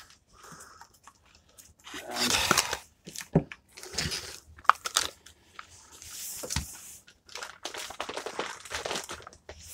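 MRE plastic packaging being handled: irregular bursts of crinkling and tearing, with a few sharp clicks.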